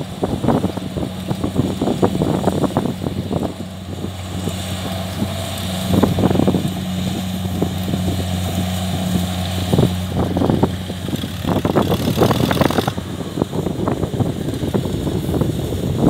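Kubota DC70 combine harvester's diesel engine running steadily with a low, even hum, while wind buffets the microphone in gusts.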